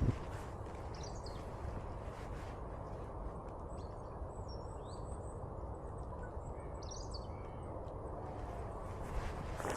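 A few faint, brief bird chirps over a steady low background noise of outdoor ambience, with no footsteps.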